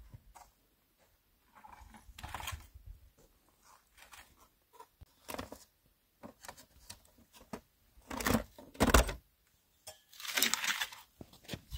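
Aluminium foil crinkling as it is peeled back off a hot metal baking tray, among clinks and scrapes of the tray being handled. Two heavy knocks about eight to nine seconds in are the loudest sounds.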